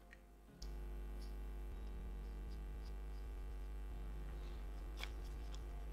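Steady low hum with faint small clicks and taps from a watch movement and dial being handled in the fingers, one click a little louder about five seconds in.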